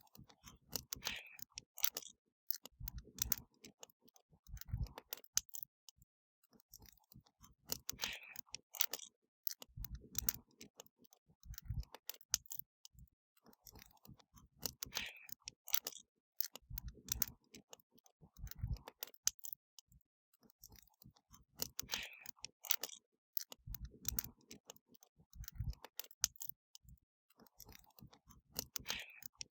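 Wood fire crackling: dense sharp snaps and pops with brief low thuds in pairs, the same pattern repeating about every seven seconds.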